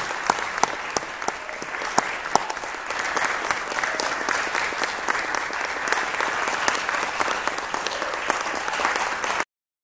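Audience applauding: dense clapping that stops abruptly near the end when the recording cuts off.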